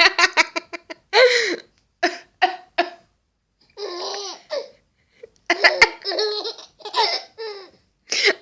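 A baby laughing in repeated short, high-pitched bursts of giggles, pausing for a couple of seconds midway before laughing again.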